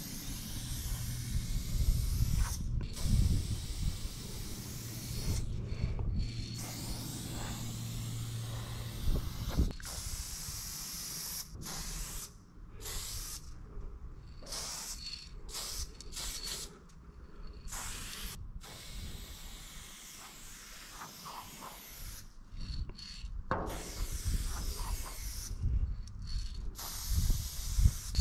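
Aerosol spray-paint can hissing in stroke after stroke, each burst cut off by short pauses, which come more often after the first ten seconds. A low steady hum runs under it at first and stops about nine and a half seconds in.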